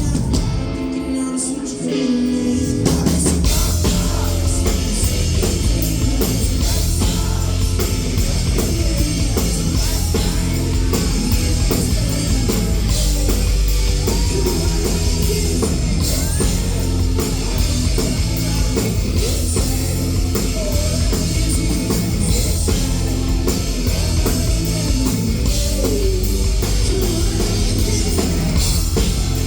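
Live rock band playing a song with drum kit, guitars and sung vocals. Near the start the bass and drums drop out briefly, and the full band comes back in about three seconds in.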